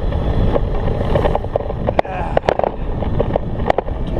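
Wind buffeting the microphone of an electric scooter under way uphill at about 20 mph, over its riding noise, with a few sharp clicks and knocks.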